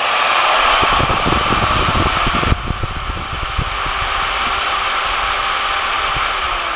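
Milwaukee 4204-1 magnetic base drill press motor running in reverse with its variable speed turned up, a steady whirring drone. There is uneven low knocking in the first few seconds, and the higher part of the whir drops a little about two and a half seconds in.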